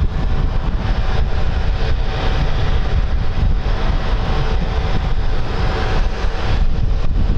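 Airbus A320-family airliner taxiing, its jet engines at idle with a faint steady whine, under heavy wind rumble on the microphone.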